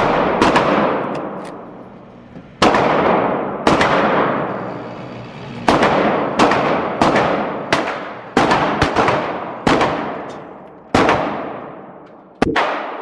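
Gunshots at an indoor firing range, about fifteen in irregular succession, each with a sharp crack and a long echo decaying off the concrete walls. The first are from a handgun fired in the lane; the shots go on after it is set down, coming from neighbouring lanes.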